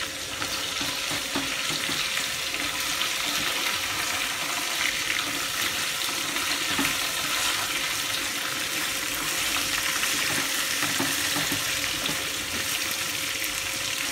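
Marinated chicken thighs sizzling steadily as they fry in oil in a metal wok on a gas burner, with a few light knocks of the chopsticks turning the pieces.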